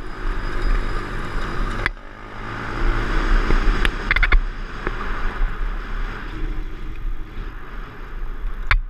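A Honda CT110 postie bike's single-cylinder four-stroke engine running under way on a dirt track, mixed with wind buffeting on the camera microphone. A sudden drop about two seconds in, and a few sharp clicks scattered through.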